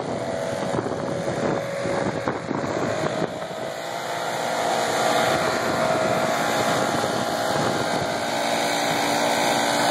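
Small gasoline engines running steadily: a Jacobsen walk-behind greens mower pulling a Core Hog attachment, and a backpack leaf blower. The sound grows louder from about four seconds in, with a few short knocks in the first few seconds.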